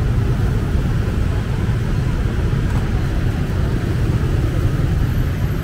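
Steady low rumble of busy street traffic, mostly motorbikes passing.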